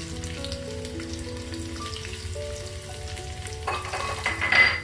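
Chopped garlic frying in hot oil in a small pan: a steady sizzle that grows louder for about a second near the end.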